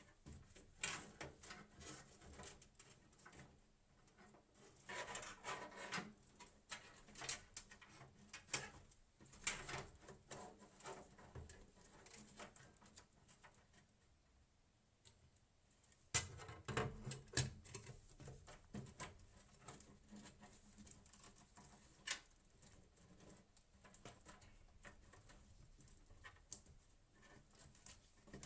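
Close-up handling noise from small hard parts being worked by hand: irregular clicks, taps and rustling scrapes, with a sharper knock about sixteen seconds in.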